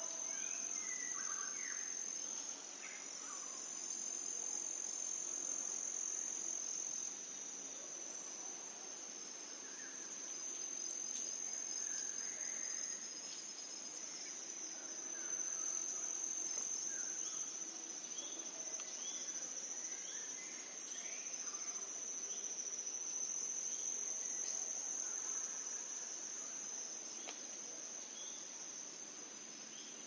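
Insects trilling in one steady high-pitched drone, with faint short chirps scattered through it.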